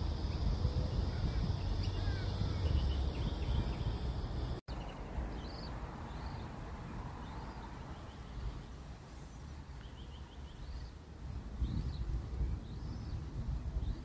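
Outdoor ambience: a low rumble at first, then after an abrupt cut about five seconds in a quieter background with a small bird giving short high chirps about once a second.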